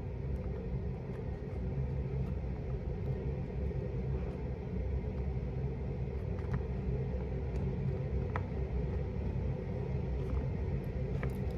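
Steady low rumble with a faint hum, and a few faint clicks.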